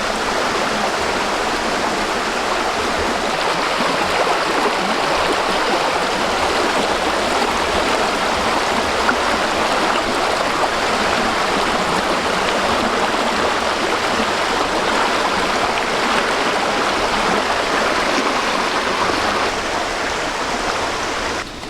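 Steady rushing of a flowing stream, cutting off abruptly near the end.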